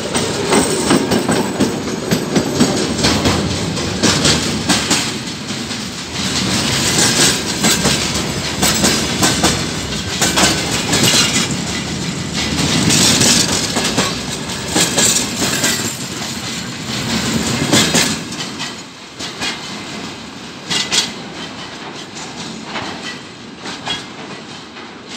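Freight train drawn by a TEM2 diesel shunting locomotive passing close by: the locomotive goes past first, then a long line of freight wagons rolls by with wheels clattering over the rail joints. After about eighteen seconds the end of the train passes and the clatter fades to a few separate clacks.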